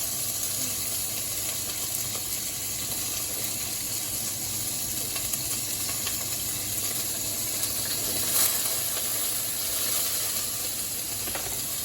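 Pork frying in its own rendered fat in a wok with a steady sizzle, and one brief louder pop about eight seconds in.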